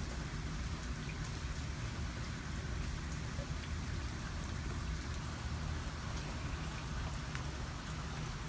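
Steady rain falling in a thunderstorm, with scattered drops ticking and a low, even rumble underneath.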